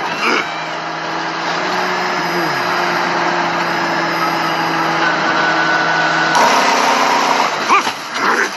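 Steady engine drone with a constant low hum, running evenly without any rise and fall; the sound changes abruptly about six seconds in.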